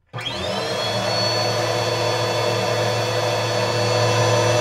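Stick vacuum cleaner switching on: the motor whine rises quickly to speed right after the switch-on, then runs steadily and loudly.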